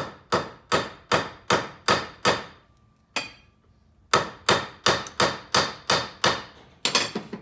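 Hammer blows pounding a crimped copper-pipe cable lug tight, about three sharp strikes a second, each with a short metallic ring. The blows stop for about two seconds midway, with one light tap, then resume.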